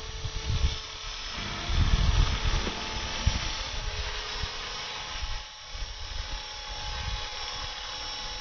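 450-size electric RC helicopter in flight: its motor and rotors give a steady whine, with an uneven low rumble underneath.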